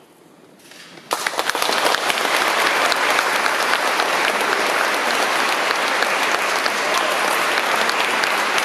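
Audience applause breaking out suddenly after about a second of hush, then dense, steady clapping.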